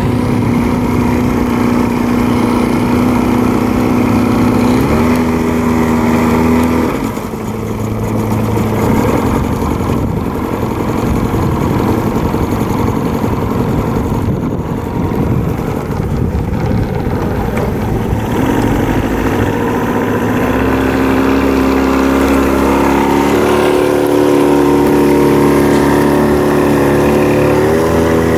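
40 hp Johnson outboard motor running with the boat under way. Its note steps up and down several times as the throttle changes, and through the middle it is partly covered by a rough rushing noise.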